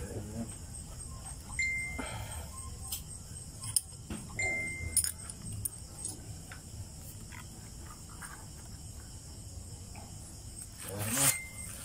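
Light clicks and taps of small metal parts being handled and fitted into the body of a truck's pneumatic footbrake valve during repair, with a few short pitched calls in the background.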